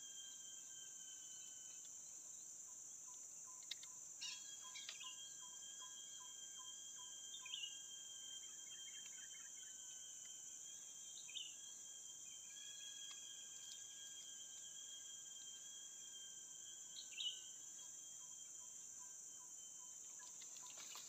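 Insects droning steadily, a continuous high whine. A few short bird chirps come several seconds apart, and a soft note repeats about three times a second for several seconds.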